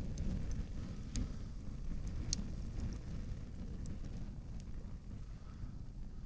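Newly lit campfire crackling, with scattered sharp pops, over a steady low rumble.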